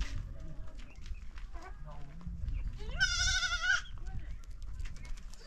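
A sheep bleats once, a quavering call lasting under a second about three seconds in, over a steady low rumble.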